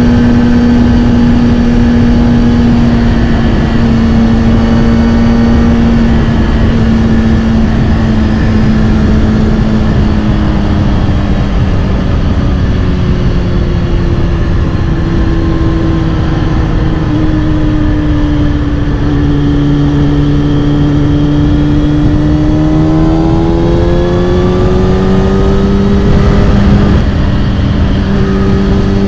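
Kawasaki Ninja ZX-6R inline-four running through a Scorpion titanium exhaust at riding speed, over a steady rush of wind noise. The engine note sinks slowly as the revs come down, then climbs again over the last few seconds as the bike accelerates.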